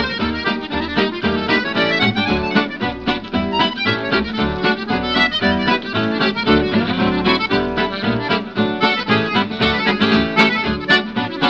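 Instrumental background music with a quick, steady beat and many fast melodic notes, without singing.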